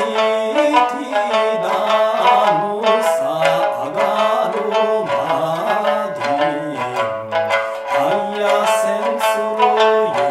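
Sanshin, the three-stringed Okinawan snakeskin lute tuned A-D-A, plucked briskly with a plectrum in a fast, lively folk-dance rhythm, with a man singing the Okinawan folk melody over it.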